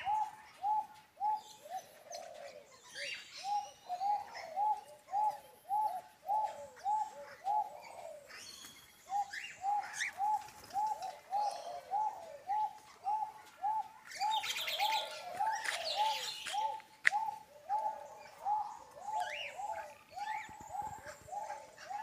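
A bird calling a long series of short, repeated notes, about three a second, pausing briefly now and then, with other birds chirping at a higher pitch over it, busiest around the middle.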